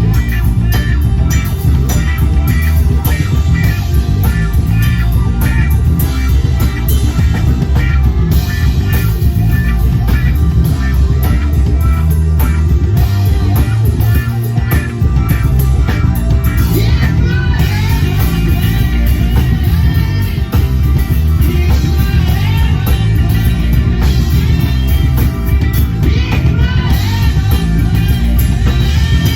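Loud rock music with electric guitar, bass and drums, and a voice singing at times.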